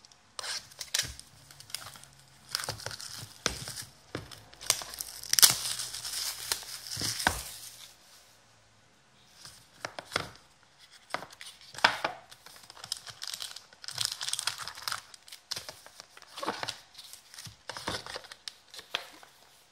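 Plastic shrink-wrap torn off a sealed trading-card box and crinkled by hand, with the cardboard box handled: a run of crackles and rips, loudest in a long tear about five to seven seconds in, a short lull around eight to nine seconds, then more crinkling.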